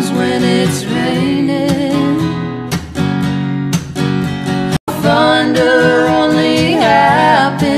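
A song with strummed acoustic guitar and a singing voice. The music drops out abruptly for an instant just before the five-second mark.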